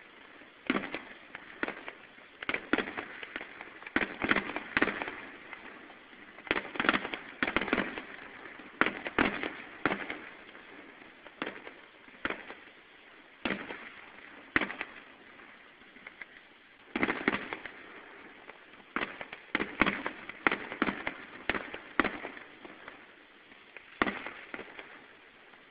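Fireworks going off: sharp bangs and pops come in irregular clusters of rapid reports, with a few single bangs between them.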